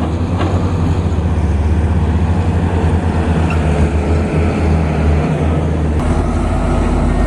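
Komatsu PC210LC excavator's diesel engine running steadily with a deep, throbbing drone. Its note drops lower about six seconds in.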